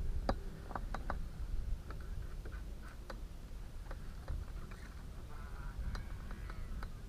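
Wind rumbling on the microphone, with scattered light ticks and clicks, several in quick succession about a second in.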